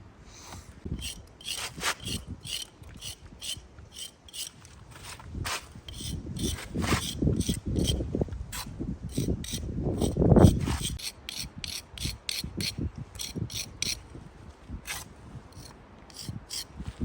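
Repeated quick scraping strokes of a steel jointing iron drawn along fresh mortar joints between bricks, with heavier rubbing strokes in the middle and the loudest one about ten seconds in.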